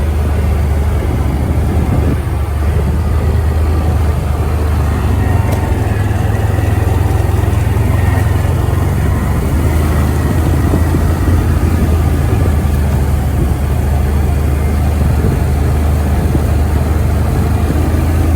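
ATV engine running steadily at low revs, its pitch holding fairly even throughout.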